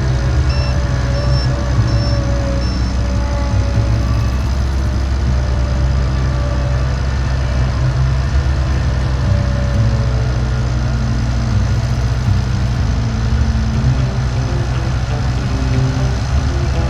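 Engine of heavy farm machinery running steadily under load.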